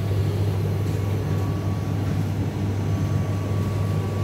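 A steady low machine hum, the kind given off by refrigeration equipment, with a faint thin high tone running alongside it.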